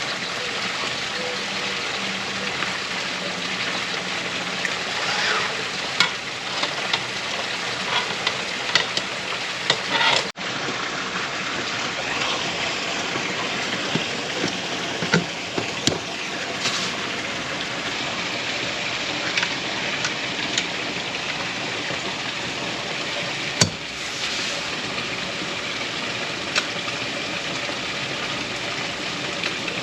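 Steady background hiss with scattered clicks and knocks as a folding camp cot is unfolded and its frame set up, with a brief dropout about a third of the way through.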